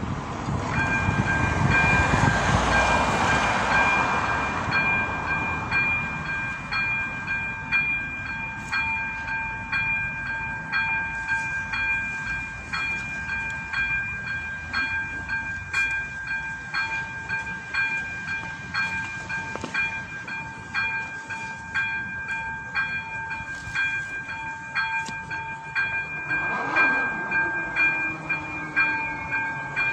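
Electronic level-crossing bell (AŽD ZV-02) ringing a steady, rapidly repeating high electronic ding, which warns that the crossing is closing for a train. It starts about a second in, as a car passes over the crossing.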